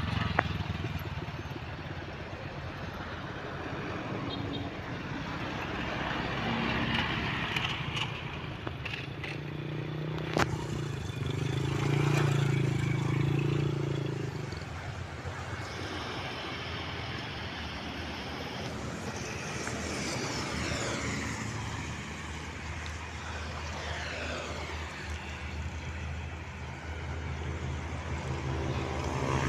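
Road traffic, motorcycles and cars, passing close by, their engine noise swelling and fading, loudest about twelve seconds in. A single sharp click just past ten seconds.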